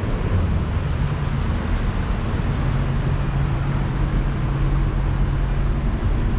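Steady low engine rumble with a held hum, from motor vehicles running.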